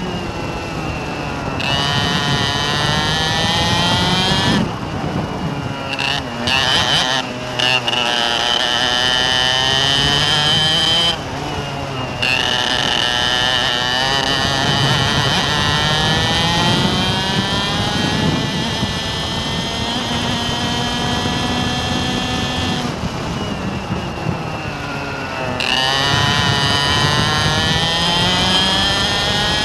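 Motor vehicle engine running close by, its pitch climbing and falling again and again as it revs up and down, with the bright upper whine cutting out abruptly several times, as when the throttle is shut.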